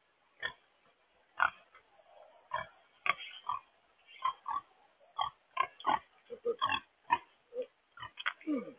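Blue Hampshire pigs grunting: a run of short grunts about two a second, coming closer together after the first few seconds, with a lower, falling grunt near the end.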